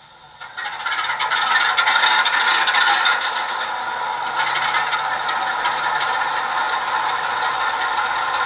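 A model locomotive's DCC sound decoder playing a recorded Class 45 diesel with its Sulzer 12LDA28 engine: the engine starts up from silence with a rattling, clattering rush over the first second or two, then settles into a steady idle. It comes through a small speaker, so it sounds thin, with little bass.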